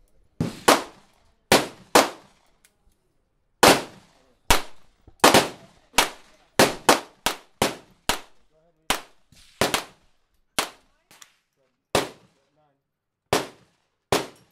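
Gunfire: about twenty single shots at uneven intervals, some in quick pairs, each with a short trailing echo.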